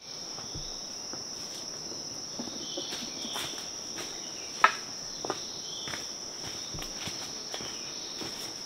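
Steady high-pitched insect chirring from the forest, with a few scattered light clicks or knocks, the sharpest about halfway through.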